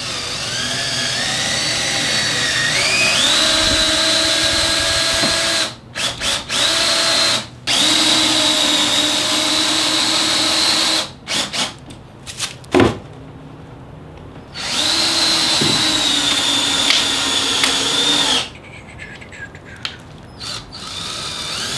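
Cordless drill boring pilot holes into a wooden tabletop: the motor whine climbs in pitch as it spins up, then three long runs of several seconds each, with short trigger blips between them. A single sharp knock about two-thirds of the way through.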